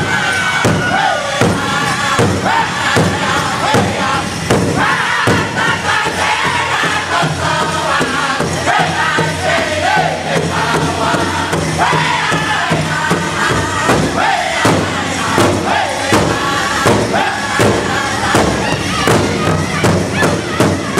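Powwow drum group: several men singing together in a loud chant while beating one large shared powwow drum in a steady, even beat.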